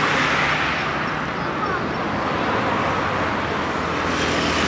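Steady vehicle noise: a low engine hum under an even hiss of traffic.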